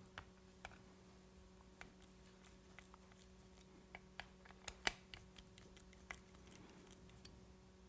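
Faint, scattered small metallic clicks and ticks of a Torx driver turning out the screws that hold the top of an Edelbrock carburetor, the loudest a little under five seconds in, over a faint steady hum.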